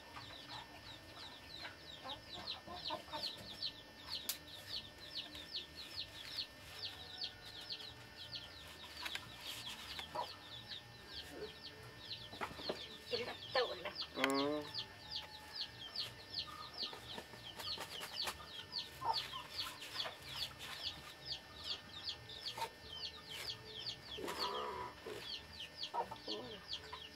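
Birds chirping continuously in quick, high, falling peeps, with a lower call that glides up and down about halfway through and a few scattered soft knocks.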